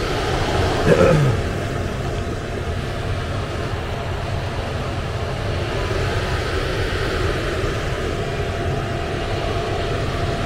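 Rheem gas furnace running with a steady rushing hum from its motors. A short tone falling in pitch sounds about a second in.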